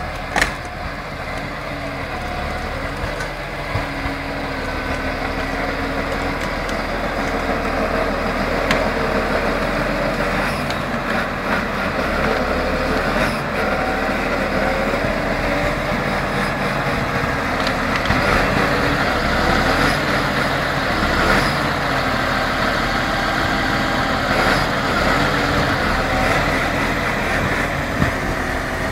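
Valtra tractor's diesel engine running steadily, growing louder over the first several seconds, with a sharp knock about half a second in.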